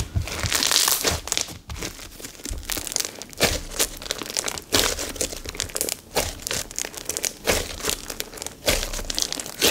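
White-glue-base slime packed with silica beads being squeezed and stretched by hand, giving a dense run of irregular crackles and pops as the beads shift and the slime tears and folds.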